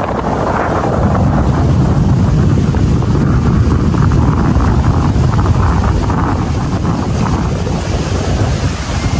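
Strong wind buffeting the microphone, a continuous low, gusty rumble, with the sea washing on the shore beneath it.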